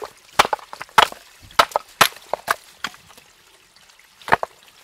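Steel rock hammer striking and splitting hard stream rocks: a run of sharp cracking knocks about every half second, then one more blow near the end. The rocks are being broken open to look for fossils inside.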